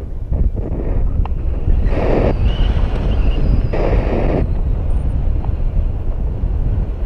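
Wind buffeting an action camera's microphone in flight under a tandem paraglider: a constant low rumble, with two brief louder gusts about two and four seconds in.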